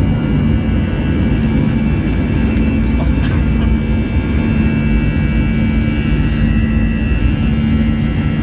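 Airliner's jet engines at takeoff thrust, heard from inside the cabin: a loud, steady roar with a low hum and high whining tones as the plane lifts off and climbs.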